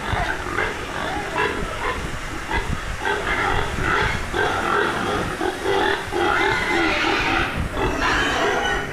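Pigs squealing in a near-continuous run of pitched cries, which grow louder about three seconds in.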